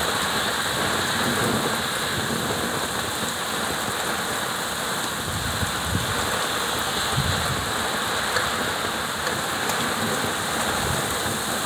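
Heavy rain pouring steadily onto wet pavement, an even hiss with no break.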